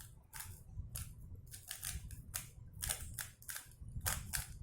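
Layers of an RS3M 2020 3x3 speed cube being turned by hand: a quick, irregular run of light plastic clicks, about three or four a second.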